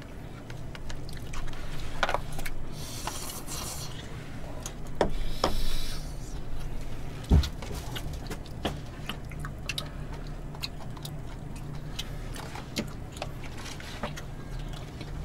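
Eating at a table: chopsticks and spoons clicking and scraping against plastic takeout containers, with a couple of brief rustling hisses in the first six seconds and a dull thump about seven seconds in, over a low steady hum.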